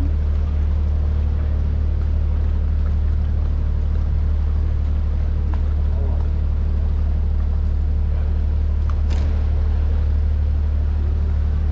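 Open canal tour boat's motor running steadily under way, a constant low drone. A brief sharp click about nine seconds in.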